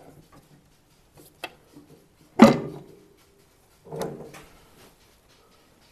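Workshop handling knocks as the bass neck in its wooden clamping block is moved at the drill press: a sharp click, then a loud knock with a brief ring about two and a half seconds in, and a duller knock about four seconds in.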